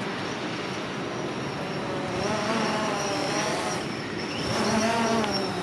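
DJI Phantom 4 Pro quadcopter's motors and propellers whining over a steady hiss, the whine wavering up and down in pitch as the drone is flown back.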